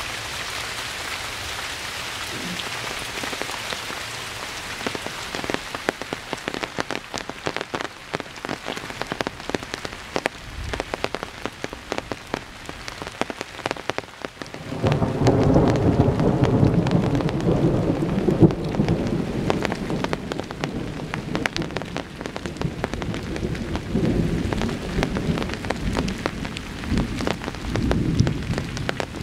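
Steady rain falling, with single drops ticking sharply close by. About halfway through, thunder breaks in with a sudden low rumble that swells and fades repeatedly to the end.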